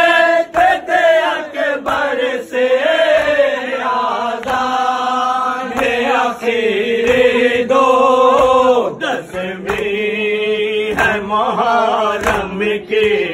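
Male voices chanting an Urdu nauha, a Shia lament for Imam Husain, in long held melodic lines. Sharp slaps of hands on chests (matam) keep time, about one a second.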